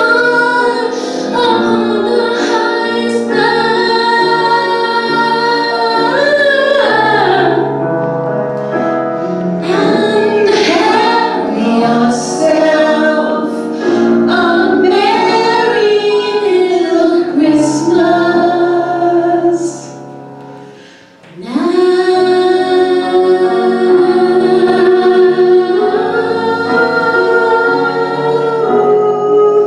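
Two women singing a duet with musical accompaniment, in long held notes. The music falls away briefly about twenty seconds in, then comes back on a new long sustained note.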